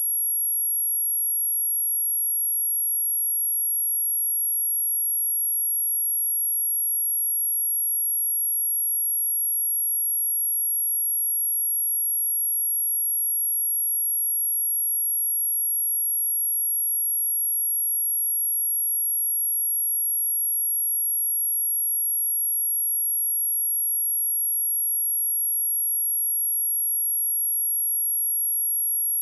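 A pure 11277 Hz sine-wave test tone, a single very high-pitched whistle held steady without a break, of the kind played to test speakers or to clear water and dust from them.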